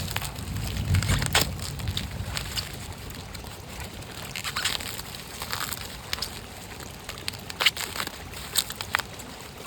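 Knife cutting into a green coconut: short crunching cuts at irregular intervals, several grouped near the middle and toward the end.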